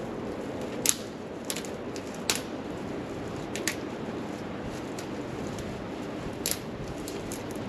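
Campfire burning with a steady rushing hiss and about five sharp, irregular pops of the wood, the loudest about a second in.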